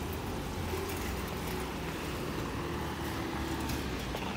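Steady street noise with a small goods truck's engine running as it drives past.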